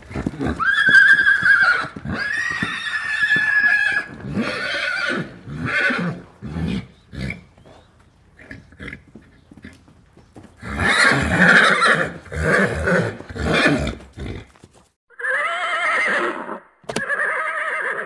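Horses whinnying: a string of separate high, wavering calls. A cluster of rougher, noisier calls comes in the middle, and two more whinnies follow near the end.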